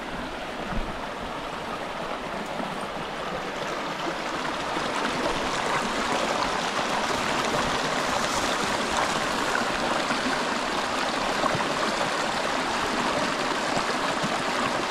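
Forest stream rushing and babbling over rocks: a steady water noise that grows gradually louder over the first several seconds, then holds.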